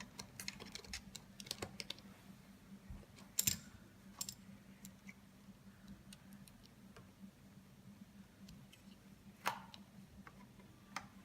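Scattered light clicks and ticks of a Torx screwdriver and the plastic housing of a car dashboard display being handled as its screws are removed, with a sharper knock about three and a half seconds in and another near the end. A faint steady hum runs underneath.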